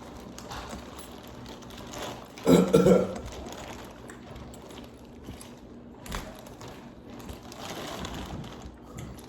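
Eating noises of a seafood boil meal: low chewing, smacking and handling of shellfish and wrappings. A brief hum of the voice comes about two and a half seconds in, and a sharp click about six seconds in.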